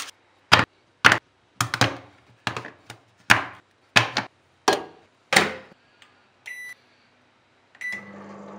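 A chocolate bar snapped into pieces by hand, about a dozen sharp cracks roughly every half second. Then two short beeps from a microwave oven's keypad, and the oven starts running with a low hum near the end.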